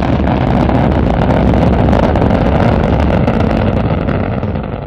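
Rocket engine firing: a loud, steady rushing rumble that begins to fade near the end.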